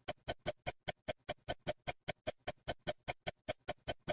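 Clock-ticking sound effect: short, even ticks, about five a second, marking time racing by.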